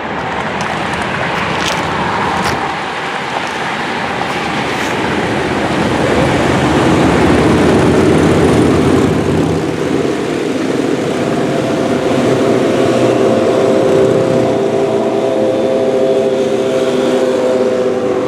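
Continuous road-traffic noise of passing vehicles. About halfway through, a steady droning engine note rises and stays loud to the end.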